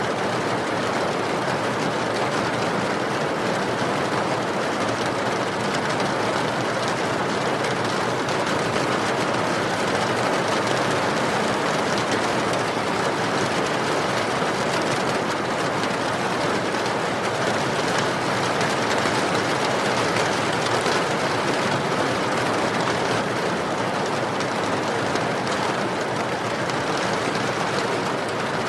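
Steady rain falling, an even dense patter with no pauses or changes.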